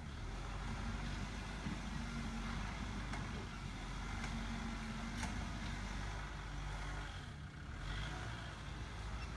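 Kubota machine's engine running steadily at an even speed, with a brief dip about three-quarters of the way through.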